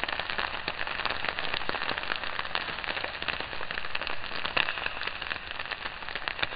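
Steady, dense crackling made of many small clicks and pops, with no pitch to it.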